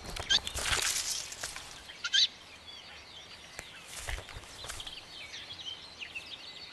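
Scratching and rustling as a Ural owl chick clambers over bark and undergrowth. A short rising bird chirp comes about two seconds in, with fainter chirps and a soft thump after it.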